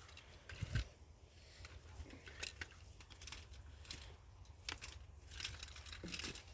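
Scattered light clicks and rustles of hands working on the tractor's battery cables and connections, with a dull knock about a second in and a low steady hum underneath.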